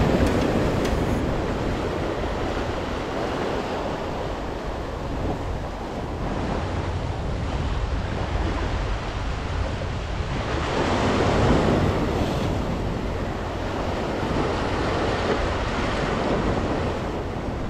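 Sea surf breaking and washing over the rocks of a stone jetty, swelling louder at the start and again about eleven seconds in.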